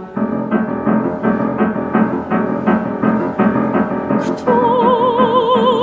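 Piano playing a short interlude of evenly pulsing chords between sung phrases. About four and a half seconds in, a soprano voice re-enters on a held note with wide vibrato over the piano.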